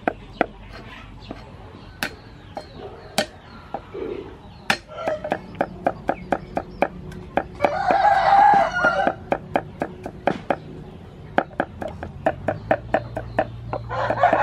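Cleaver chopping green onion and garlic on a thick wooden chopping block, with a run of sharp, even knocks at about three strokes a second. A rooster crows loudly about halfway through and again near the end.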